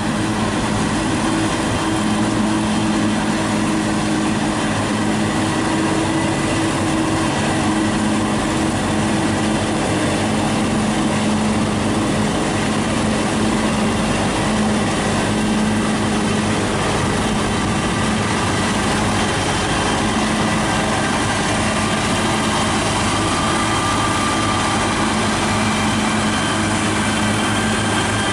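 Tractor engines and a trailed forage harvester running steadily while chopping maize and blowing it into a trailer alongside, an even, unbroken machine noise with a constant engine hum.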